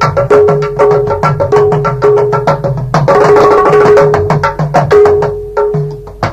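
Closing instrumental music of fast hand-drum percussion, about six strokes a second, with a ringing pitched drum note that recurs again and again. A denser roll swells about three seconds in, and the music fades out near the end.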